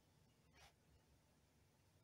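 Near silence: faint outdoor room tone, with one faint brief rustle about half a second in.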